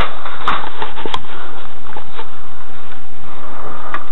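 A few light clicks and knocks as a metal tool chest drawer is handled and pulled open, over a steady hiss.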